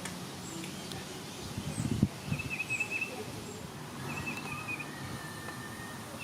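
Birds calling outdoors: a short trilled call repeats about every two seconds, with faint high chirps and a thin held whistle near the end. About two seconds in there is a brief low rumble ending in a sharp knock.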